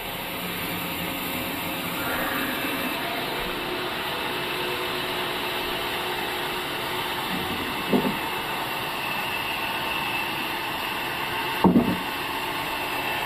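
Sawmill machinery running steadily, with two short knocks, the second one louder.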